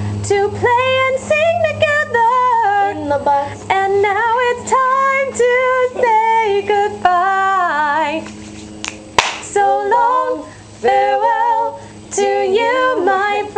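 A woman singing a slow melody in held, gliding notes, phrase after phrase with short breaths between. A single sharp click about nine seconds in.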